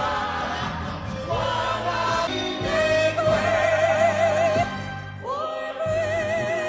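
Singing with musical accompaniment: a voice holds long notes with a wide vibrato, one about three seconds in and another starting near the end.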